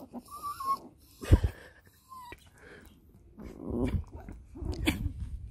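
A chihuahua and another small dog play-wrestling. There are short high whines near the start, a sharp thump about a second in, then a stretch of growling in the second half.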